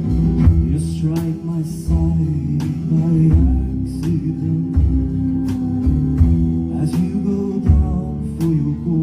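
Instrumental passage of a live band: plucked guitar notes over sustained low bass.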